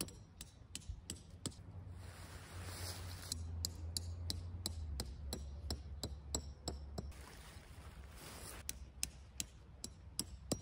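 Light, sharp taps of a hammer knocking tent stakes into the ground, often a few a second with short pauses between, and faint rustling in between.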